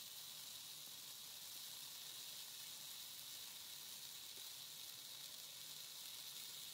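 Christmas trees burning in a fire pit: a faint, steady hiss with no distinct crackles.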